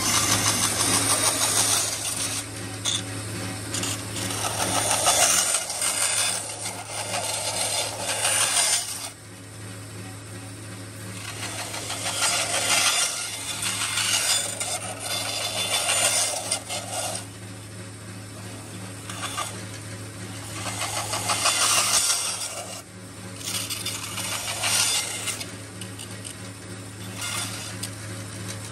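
Bandsaw running with a steady motor hum while its blade cuts through the plastic frame of a car speaker. The cutting noise comes and goes in several passes as the frame is pushed into the blade and eased back.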